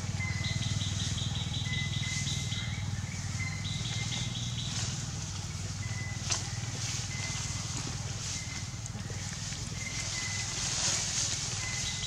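Outdoor ambience: a steady low hum under repeated high-pitched chirping trills, two runs of them in the first five seconds, with a single sharp click about six seconds in.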